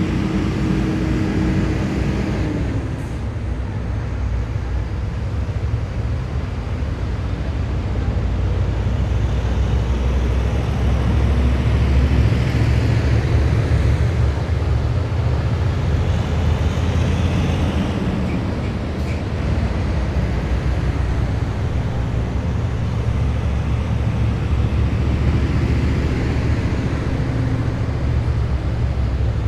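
Heavy military vehicles driving past in a column, a steady loud low diesel rumble with tyre noise; engine tones drop in pitch as individual vehicles go by, around 2–3 s in and again near 18 s.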